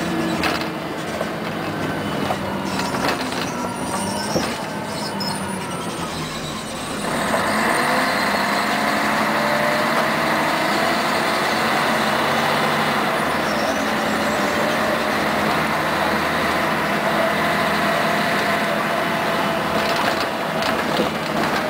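Interior of a 1992 Scania CN113ALB articulated diesel bus on the move: quieter running with rattles and knocks, then about seven seconds in the engine and drivetrain noise suddenly gets louder and holds, with a steady whine that drifts slowly in pitch as the bus drives on.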